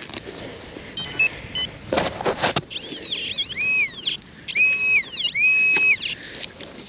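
Metal detector sounding on a buried target as the coil is swept back and forth: three tones in the second half, each rising to a held high pitch and falling away, with a few short stepped beeps about a second in and a brief clatter of knocks around two seconds.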